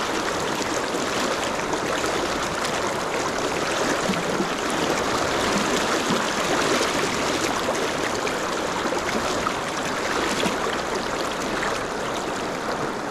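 Shallow river rapids rushing steadily, heard close up, a continuous even rush of water with no let-up.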